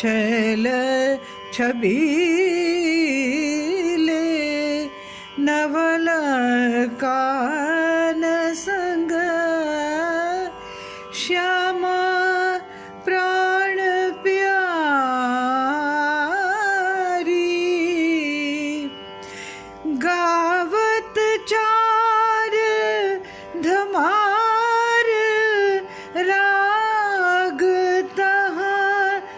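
A woman singing an Indian classical-style Holi song in long phrases full of gliding, wavering ornamented notes, with short pauses between phrases, over a steady tanpura drone.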